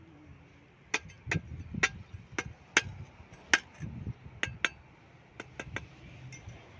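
A metal hand tool striking hard material: about a dozen sharp, briefly ringing clinks at uneven spacing, stopping a second before the end.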